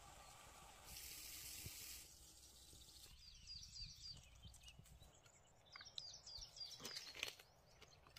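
Faint outdoor ambience in which a bird sings two short runs of quick falling chirps, a few seconds apart. A brief soft hiss comes about a second in, and a few light clicks sound near the end.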